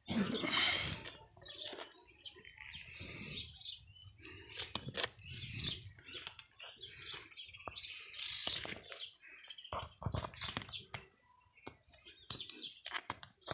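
Small birds chirping, with many short clicks and knocks from close movement and handling.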